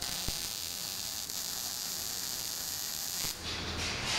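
Electric arc welding on a steel bar: the welding arc gives a steady hiss while laying a bead and cuts off a little over three seconds in.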